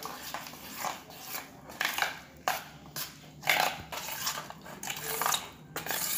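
Repeated short, wet squishing and scraping noises, about one or two a second, of coated chicken pieces being mixed and stirred.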